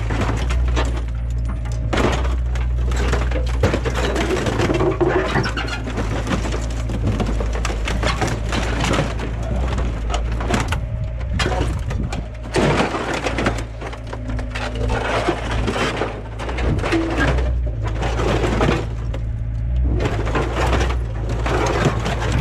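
An excavator rips apart the rusted body and cab of a 1999 Dodge Ram pickup: sheet metal crunches, cracks and tears with many sharp impacts and brief squeals, over the excavator's engine running steadily underneath.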